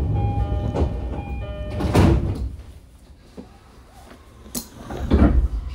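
E231 series commuter train's door-closing chime sounding a few steady notes, then the sliding doors shutting with a loud thump about two seconds in and another near the end.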